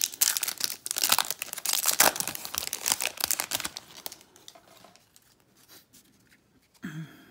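Trading-card pack wrapper crinkling and tearing as the pack is opened, a dense crackle that stops about four seconds in. Then faint handling of the stack of cards.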